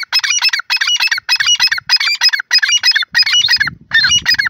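Grey francolin calling close up: a loud, fast run of repeated high multi-note phrases, about two phrases a second.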